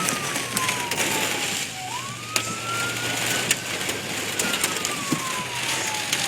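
A wailing siren whose pitch falls, sweeps back up about two seconds in, then slowly falls again, over a steady hiss with scattered sharp taps.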